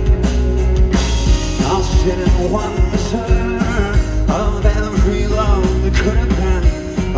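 Live rock band playing through a loud PA, with drums keeping a steady beat under guitars, bass and sung vocals.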